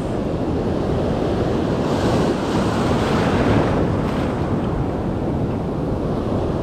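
Surf breaking and washing up over a shallow sandy beach in a steady rush of foaming water, with wind on the microphone.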